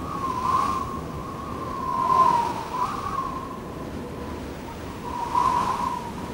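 Wind blowing: a rushing noise with a wavering whistling tone that swells and eases about three times, loudest about two seconds in.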